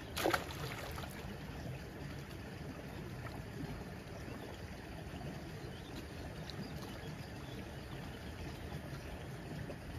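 Steady low rushing of running canal water, with one brief sharp sound just after the start.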